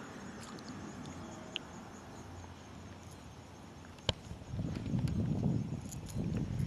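Handling sounds of backlashed fishing line being pulled off a baitcasting reel by hand: a single sharp click about four seconds in, then low rustling and thumping in two bouts.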